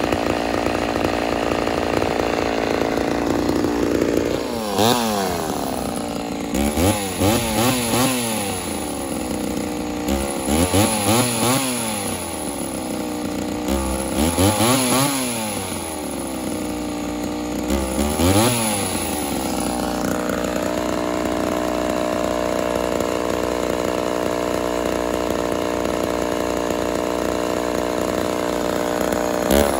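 Mildly ported Homelite Super XL Auto two-stroke chainsaw fitted with a bow bar, idling, then revved up and down about five times as the bow bar cuts into a log. It settles back to a steady idle about twenty seconds in.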